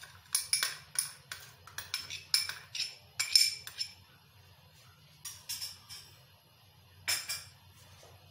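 A metal spoon clinking and tapping against the rim of a stainless-steel pot as garlic paste is knocked off it into the water: a quick irregular run of sharp clinks in the first few seconds, then a few more later, over a low steady hum.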